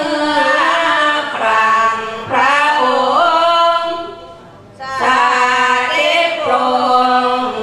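Women's group singing a Thai Buddhist sarapan, devotional verse chanted in Isan melody, unaccompanied and amplified through a microphone. Long held, melismatic phrases, with a short breath pause about four and a half seconds in.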